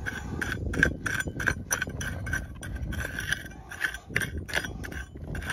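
Digging pick striking hard ground over and over, about three strikes a second, each with a short ring, as a deep detector target is dug out.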